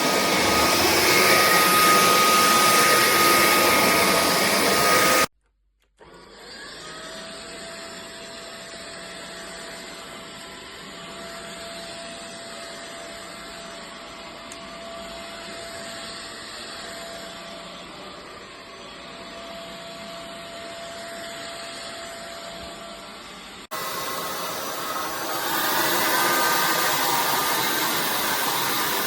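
AlloyMove cordless stick vacuum running: a steady rush of suction air with a high motor whine. About five seconds in it breaks off, then runs much quieter with a lower whine, and near the end it is loud again.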